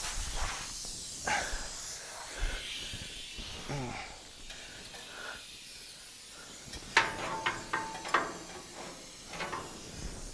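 Hacksaw cutting through the steel seam of a car's fender skirt: faint, irregular rasping strokes, with a cluster of sharper scrapes and clicks about seven to eight seconds in.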